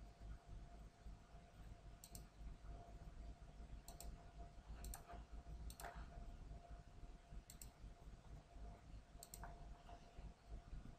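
Faint, scattered clicks of a computer mouse, about six of them, some in quick pairs, over a low steady hum.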